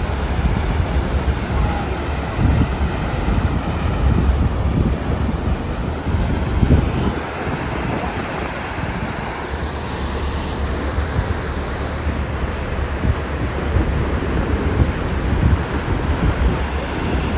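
Wind buffeting the microphone over the rushing, churning water of a passenger boat's wake, with a steady low rumble from the boat underneath.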